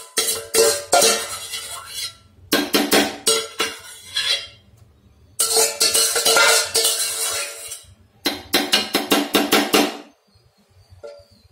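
Steel spoon scraping and knocking against the inside of a stainless steel pan, clanking in four quick bursts with the metal ringing, as cooked tomato mixture is scraped out; it goes quiet for about the last second and a half.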